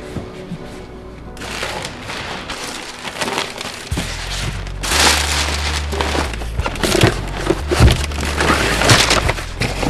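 Stiff sailcloth rustling and crackling as rolls and folds of fabric are pulled out and shifted, starting about a second and a half in, with background music underneath.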